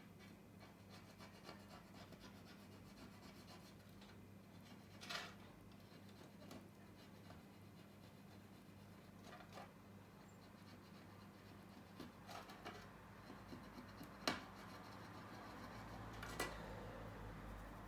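Faint scraping and rubbing on an iPhone 8 Plus housing as leftover rear glass and adhesive are cleared off, with a few short sharp clicks, the loudest about 14 seconds in, over a low steady hum.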